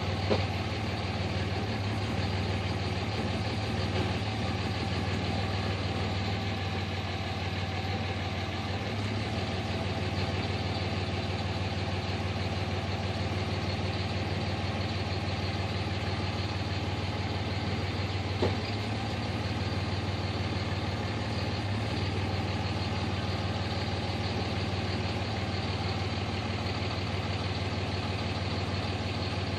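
Vehicle engine idling steadily with a low, even hum, and a short click near the start and again about eighteen seconds in.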